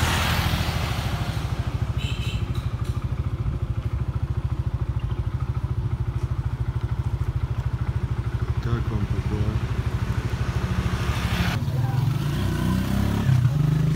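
Motorbike engine running close by, a steady low rumble with a fast, even pulse.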